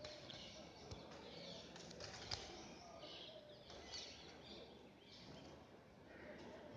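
Near silence: faint background noise, with a faint click a little over two seconds in.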